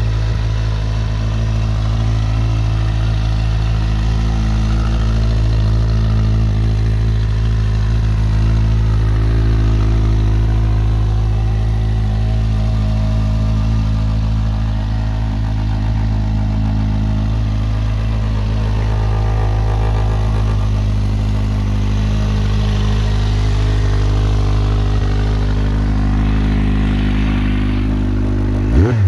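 2008 Kawasaki Z1000's inline-four engine, breathing through an SP Engineering aftermarket exhaust, idling steadily. Right at the end the throttle is blipped once and the revs rise and fall.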